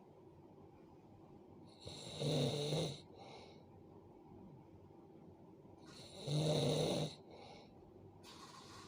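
A sleeping person snoring: two loud, low snores about four seconds apart, each lasting about a second, each followed by a short, softer breath.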